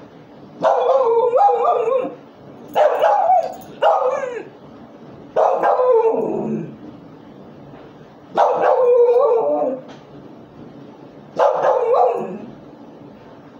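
Dog giving six drawn-out howling barks, each lasting about a second, with short pauses between them; the fourth slides down in pitch as it ends.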